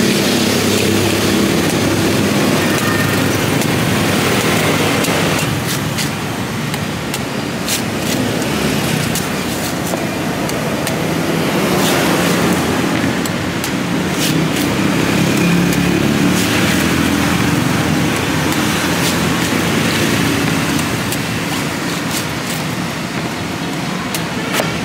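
Steady street traffic noise, with vehicle engines running and passing, and a few sharp knocks scattered through it from a cleaver cutting into a young green coconut.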